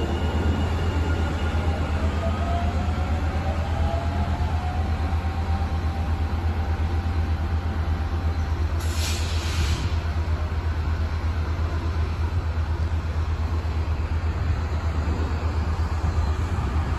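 Metro light rail train with a steady low rumble. Over the first few seconds a whine from its electric drive glides in pitch as the train moves. About nine seconds in there is a short hiss lasting roughly a second.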